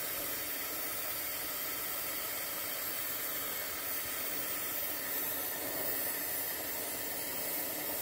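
Oxy-acetylene torch with a rosebud heating tip burning with a steady hiss, its flame held on a copper refrigerant joint to heat it for brazing.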